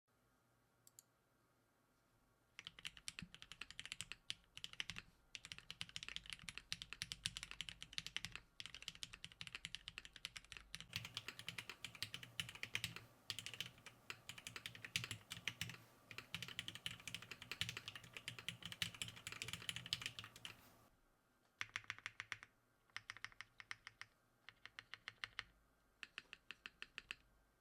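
Typing on a Baionlenja Bias R2 mechanical keyboard with linear Cherry MX Black switches on a polycarbonate plate, GMK keycaps and no foam inside. After a near-silent start it becomes a steady stream of fast keystrokes from about two and a half seconds in, then breaks into short bursts with pauses over the last six seconds.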